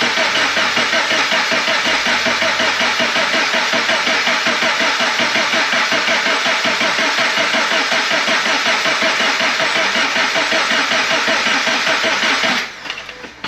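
Freshly installed FA20 flat-four being cranked over by its starter motor to build oil pressure, a steady, evenly pulsing churn that stops abruptly about a second before the end. No knocking or valve-to-piston contact is heard in it.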